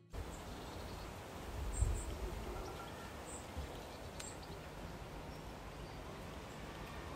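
Outdoor garden background noise: a steady low rumble with a few faint, high bird chirps in the first few seconds, and a low thump about two seconds in.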